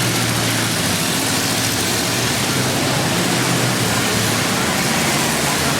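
Engines of several demolition derby cars running together in a loud, steady din.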